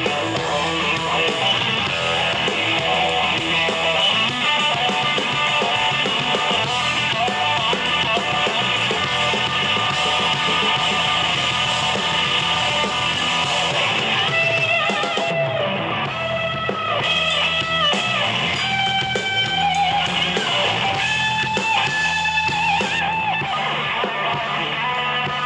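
Live rock band playing: a Stratocaster-style electric guitar over bass guitar and drum kit. From about halfway the guitar plays a lead line of held notes that bend and waver.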